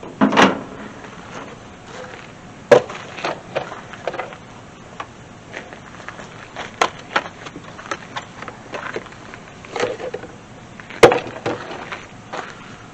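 Irregular knocks, clunks and clicks of hand work on the truck, with a handful of sharp hard knocks about half a second in, near the third second and near the end, and lighter clatter between them.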